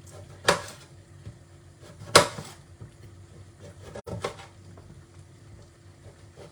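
A kitchen knife chopping through an ingredient onto a cutting board: a few separate chops, two loud ones a little under two seconds apart and some fainter knocks.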